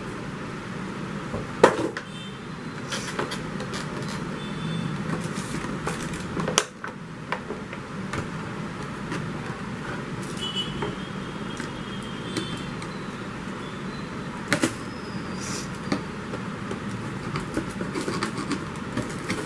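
Handling noise from headphone packaging: a white foam packing tray and plastic-wrapped cable being lifted and set down, with scattered knocks and rustles over a steady background hum. The sharpest knock comes about two seconds in, with further knocks near six and a half and fourteen and a half seconds.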